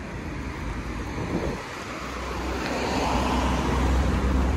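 Street traffic: a motor vehicle's low engine rumble that comes in about halfway through and grows louder.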